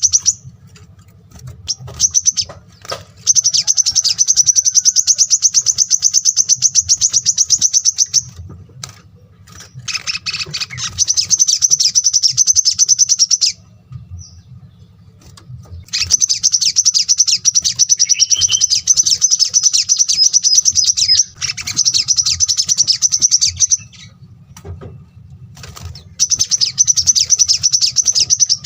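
Small songbird singing very fast, dense trills of high notes in bouts lasting several seconds, with short pauses between them, over a faint low hum.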